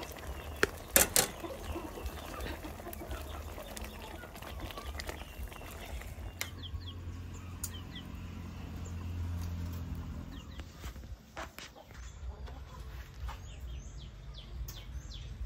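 Chickens and other birds calling faintly over a low steady rumble, with a few sharp knocks in the first second or so.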